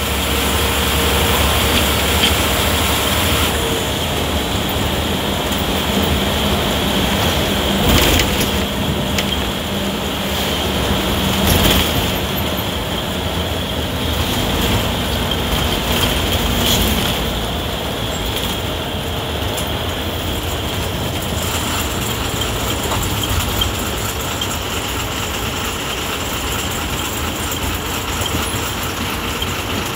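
Cabin noise inside a moving Ashok Leyland bus: the engine running under steady road and body rattle, with a few sharp knocks from the bus body.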